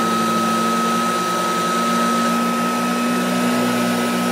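1937 Premier Deluxe upright vacuum cleaner running over a rug: its General Electric ball-bearing motor gives a steady hum and a constant high whine, while the four-row brushroll beats the carpet.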